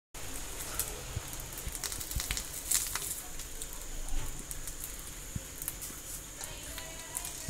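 Turmeric-leaf-wrapped fish parcels sizzling and crackling on a hot grill pan, with light clicks and scrapes as silicone tongs turn them over.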